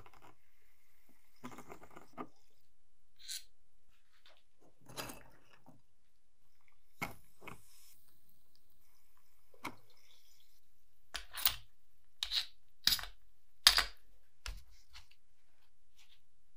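Small metal calendar plate being handled with tongs and tools: scattered light clicks and knocks, with four sharper, louder knocks in quick succession about two-thirds of the way through.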